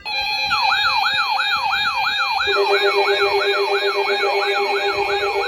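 Weather alert radio alarm sounding for a severe thunderstorm warning: an electronic siren tone sweeping up and down about three times a second over steady tones, with a second, lower steady tone joining about two and a half seconds in.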